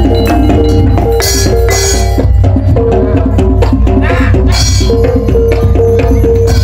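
Gamelan ensemble playing without microphones: metallophone keys struck with mallets ring out the melody over kendang drum beats and a low gong, with a few cymbal crashes.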